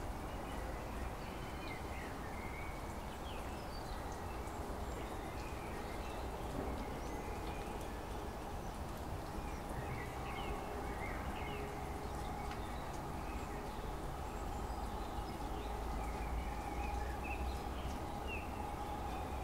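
Birds chirping, with short calls coming again and again, over a steady outdoor background with a low rumble.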